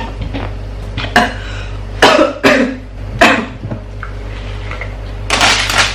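A person coughing and clearing their throat in several short, sharp bursts, then a brief burst of noise near the end.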